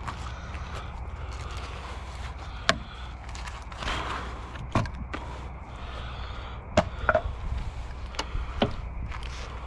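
Old porch boards being pulled loose by hand: about five sharp wooden knocks and cracks spread over several seconds, with a scraping rustle about four seconds in, over a steady low rumble.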